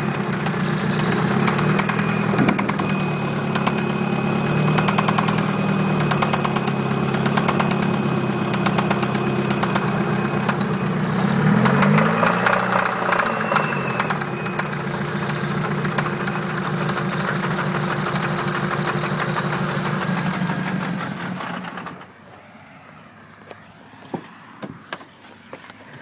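Dodge Neon's four-cylinder engine idling with a fast rapid knocking from a worn connecting-rod bearing (rod knock). It is revved up briefly about halfway through, then shut off about four-fifths of the way in, leaving a few faint clicks.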